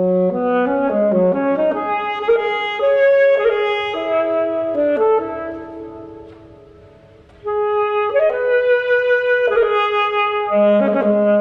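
Alto saxophone playing a slow, sustained melody in two phrases, with a short pause between them about two-thirds of the way through.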